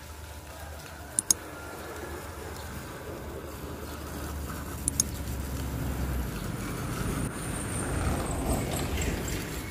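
Water from a garden hose spraying onto a motor scooter, a steady hiss and splash that grows louder toward the end as the spray is aimed low at the front wheel. Sharp double clicks sound twice, about a second in and again about five seconds in.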